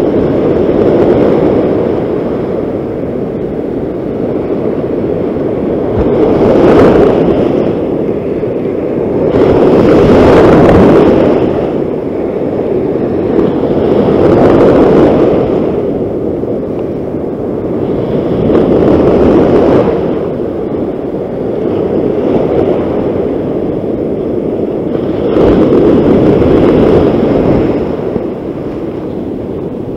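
Ocean surf breaking and washing up close by, rising in loud surges every few seconds and easing between them.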